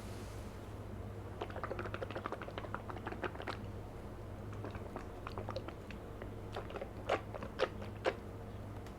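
Close-up wet mouth sounds of drinking thick yogurt: a quick run of small sticky smacks and clicks of lips and tongue, then three louder smacks near the end.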